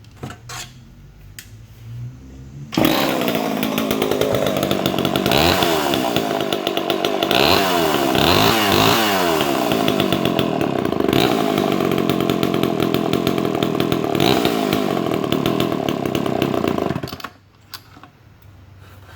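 Vintage American two-stroke chainsaw, freshly rebuilt after its engine seized, starting about three seconds in and running, revved up and down several times. It is then shut off near the end.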